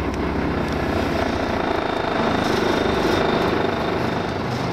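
A motor boat's inboard engine running steadily, heard from inside the wheelhouse.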